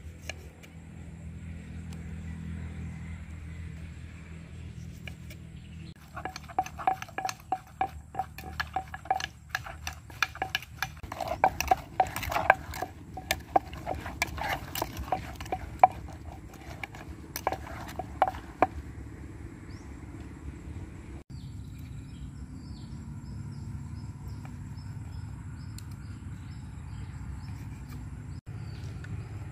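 Pounding and stirring in a clay mortar with a wooden pestle and a utensil: an irregular run of sharp, ringing knocks lasting about twelve seconds, starting about six seconds in. A steady low hum runs underneath.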